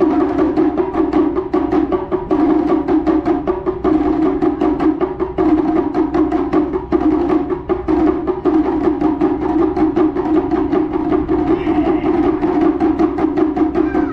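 Ensemble of Japanese taiko drums played with sticks in a fast, unbroken stream of even strikes.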